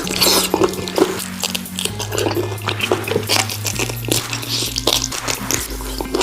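Close-miked gnawing and chewing on braised pig's trotters: wet smacking and many sharp crunchy clicks. Background music with a steady bass line plays underneath.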